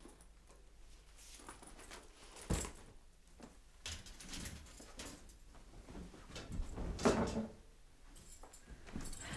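An interior door being pulled open about seven seconds in, with the rattle of its handle and latch; a single thump comes earlier, about two and a half seconds in.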